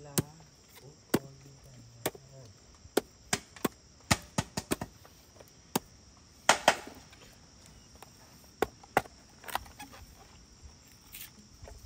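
A blade chopping wood in sharp, irregular strikes, the loudest two about six and a half seconds in, over a steady drone of crickets and other insects.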